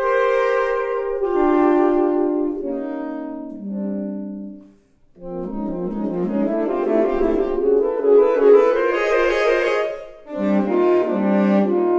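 Saxophone trio of alto, tenor and baritone saxophones playing held chords. The trio breaks off briefly just under five seconds in, then comes back with a busier passage of quickly moving notes. Held chords return near the end.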